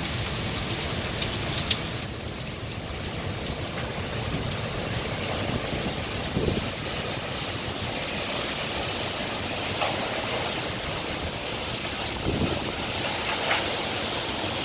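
Hurricane wind and rain: a steady rushing noise with a few brief knocks and rattles scattered through it.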